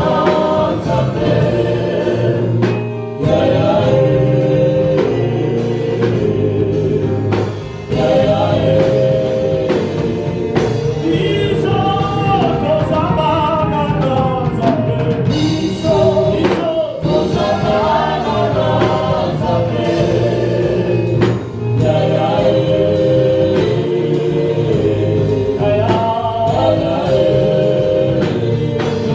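Gospel worship music: a choir singing over a band with bass and drums.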